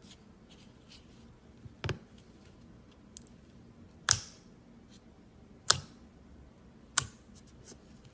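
Clear slime being handled, giving four sharp, loud pops a second or two apart, with fainter clicks between them.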